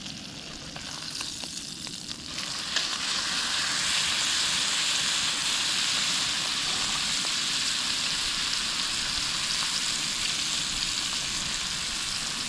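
Pork steaks frying in a pan over a propane burner, a steady sizzle that gets louder about two seconds in and then holds, with a few small crackles.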